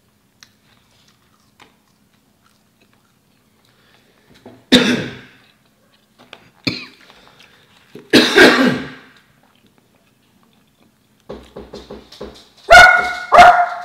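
Three loud coughs, then a quick run of knocks and two loud barks from a pet dog near the end.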